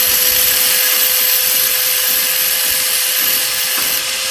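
Electric angle grinder with an abrasive cut-off disc cutting through a metal strip: a harsh, steady grinding hiss over a constant motor whine.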